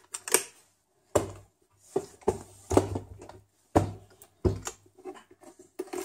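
Panasonic Toughbook CF-18 being turned into a tablet: a series of irregular knocks and clunks as the screen is swivelled on its hinge and the case is handled and set down on the bench.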